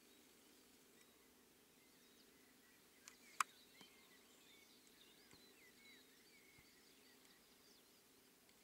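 Near silence with faint, scattered bird chirps over a low steady hum, broken by two sharp clicks a third of a second apart about three seconds in.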